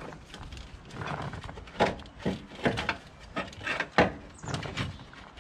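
Irregular hard clunks and knocks, the loudest about four seconds in, as the engine mount is worked back and forth in the tight engine bay and keeps catching.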